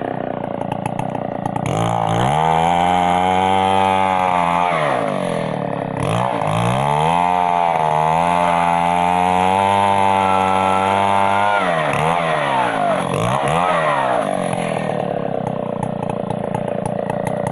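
Stihl 070 two-stroke chainsaw running hard at high revs, dipping once briefly, then falling away, revved twice, and settling to a lower, steadier run near the end.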